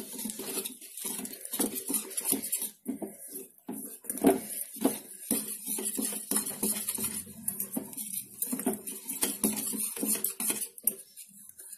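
Wire whisk beating a thin cornflour-and-flour batter in a stainless steel bowl, its wires clinking and scraping against the bowl in quick, irregular strokes.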